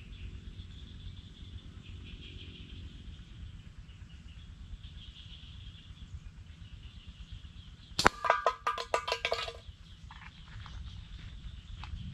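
A slingshot shot hits a metal drink can with a sharp clang, and the can rings and clatters as it tumbles across the dirt path for about a second and a half. Insects buzz steadily in the background.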